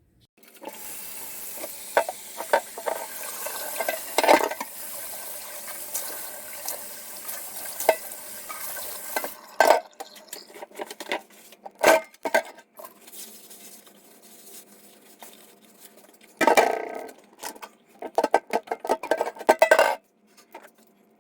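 Cutlery clinking and scraping against a cast iron skillet and dishes, over a steady sizzle for roughly the first nine seconds. After that come scattered clinks, with a short burst of clatter past the middle and a run of it near the end.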